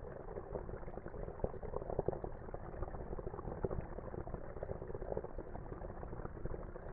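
Running water bubbling and gurgling steadily, with many small crackles.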